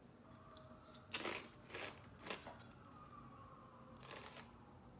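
Garlic pita chips being bitten and chewed close to the microphone: a handful of separate crisp crunches, clustered about a second in and again near the end.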